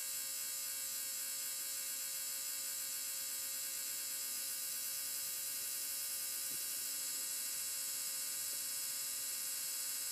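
R1 Wurks 21.5-turn brushless RC motor spinning freely at full speed on a motor analyzer with its can timing set to 10 degrees, a steady high-pitched whine.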